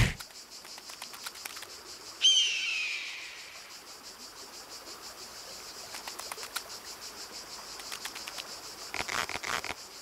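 Steady high chirring of insects, crickets or the like. About two seconds in comes one loud falling whistle-like chirp, and light ticks cluster near the end.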